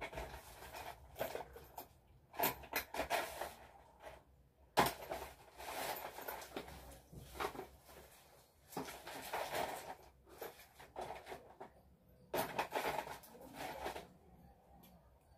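Soft, irregular rustling and handling noises in a small room, coming in several short bursts, typical of things being picked up and moved about close to the microphone.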